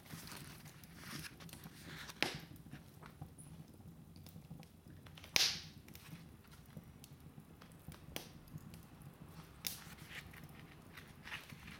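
Logs burning in a fireplace, crackling with irregular sharp pops; the loudest pop comes about halfway through.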